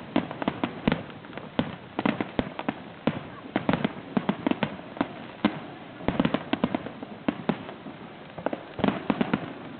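Fireworks going off in a rapid, irregular series of sharp bangs and crackles, coming in clusters with brief lulls between.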